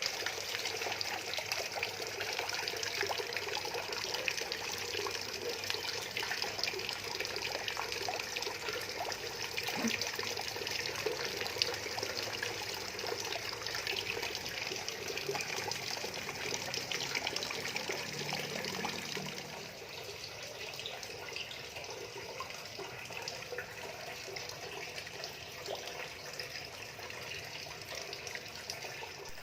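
Water running steadily from a tap, with a constant splashing patter; it gets somewhat quieter about two-thirds of the way through.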